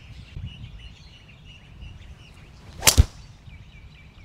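A golf tee shot: a brief swish of the downswing, then a sharp crack as the club strikes the ball about three seconds in.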